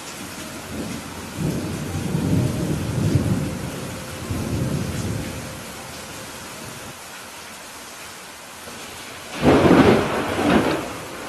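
Steady rain hissing under a thunderstorm: a low, rolling rumble of thunder that swells and fades over about four seconds, then a sharper, louder thunderclap about nine seconds in, cracking twice in quick succession.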